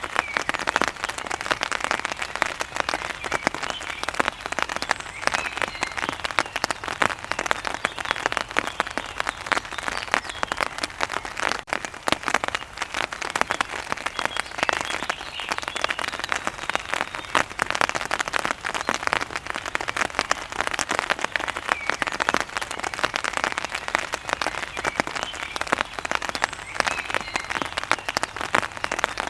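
Steady rain falling on a hard surface: a dense, even patter of countless drops, like applause.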